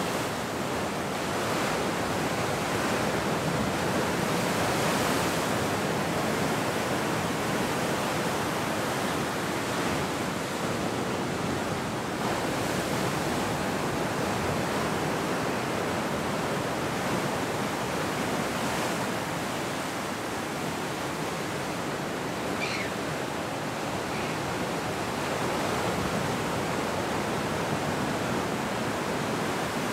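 Ocean surf breaking and washing in over shoreline rocks: a steady rush of waves and foam that swells and eases gently.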